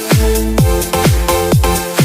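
Electronic dance music with a steady kick drum about twice a second under sustained synth chords.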